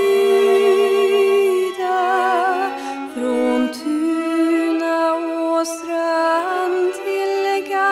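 A woman singing a melody with violin and cello accompaniment, held notes with vibrato.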